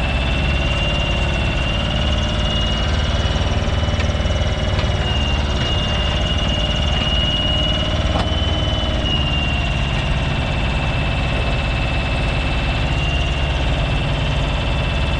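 A Smalley mini digger's engine running steadily while it digs, with a steady high whine that wavers slightly in pitch over it.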